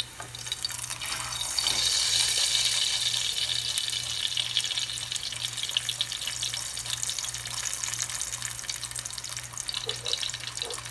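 Corn tortilla frying in hot oil in a nonstick pan, crisping into a tostada: a steady crackling sizzle that swells about two seconds in.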